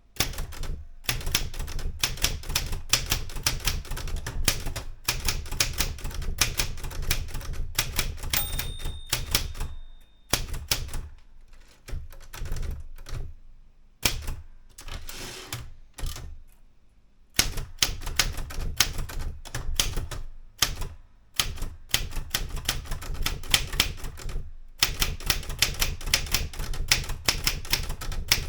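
Erika 105 manual typewriter being typed on: fast runs of key clacks with short pauses, sparser typing for a few seconds just before the middle, and a brief ringing tone about a third of the way in.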